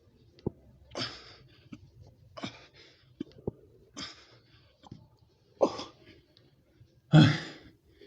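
A man breathing hard in short, forceful exhalations about every one and a half seconds, in time with push-ups. The last, near the end, is the loudest and carries a voiced grunt; a few faint clicks fall between the breaths.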